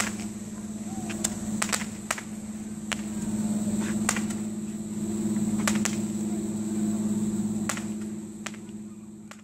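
Distant fireworks going off, about a dozen sharp pops and bangs at irregular intervals, over a steady low hum.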